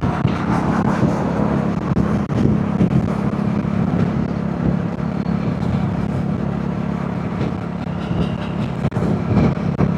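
Royal Enfield Hunter 350's single-cylinder engine running at a steady cruise, with wind and road noise over it.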